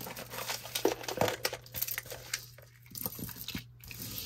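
Jewelry being handled and sorted by hand: a run of crinkly rustling with small clicks and clinks, busiest in the first three seconds, then a few scattered clicks.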